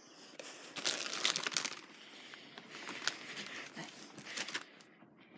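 Close rustling and crinkling handling noise, as from clothing and hands rubbing against a phone's microphone while it is jostled. It comes in two denser bouts, about a second in and again between three and four and a half seconds in.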